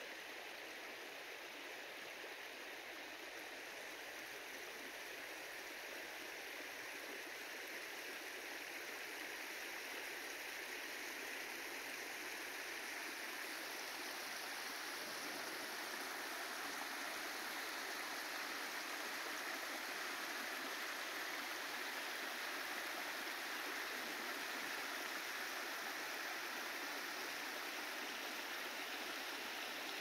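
Steady rushing of running water, a continuous even hiss with no separate splashes or drops, growing slightly louder over the first half.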